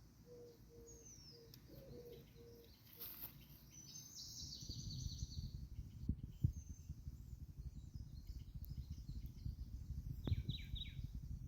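Small birds chirping, with short falling chirps and a quick flurry of calls. Low rumbling noise with a few knocks builds up from about four seconds in, and a faint tone pulses about twice a second during the first few seconds.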